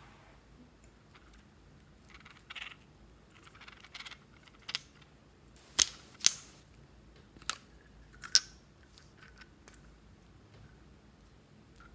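Metal lipstick cases being handled and opened: soft rustling of fingers, then about five sharp clicks of the cases and caps, the loudest a little past the middle and near the end.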